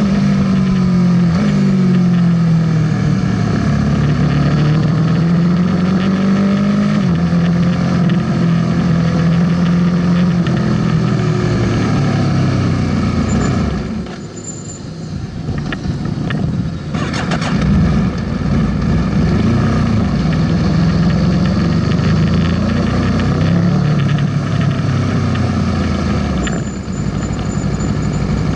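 Aprilia sportbike engine heard from on board with wind rush, the bike slowing off the track with changing revs and gear changes. About halfway through the engine note drops away briefly, then it runs at low revs as the bike rolls slowly through the pit lane.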